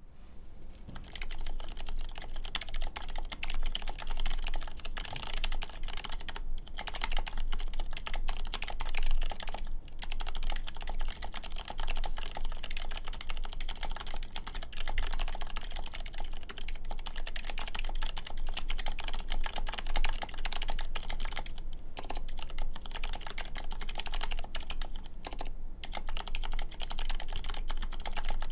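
Continuous typing on a 4GT Sabre mechanical keyboard with Cherry MX2A Silent Red switches on an aluminum plate: a dense run of key presses that starts about a second in, with a few brief pauses.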